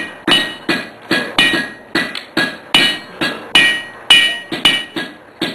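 Blacksmith's hand hammer striking red-hot iron on an anvil: a steady run of blows, about three to four a second, each with a short metallic ring.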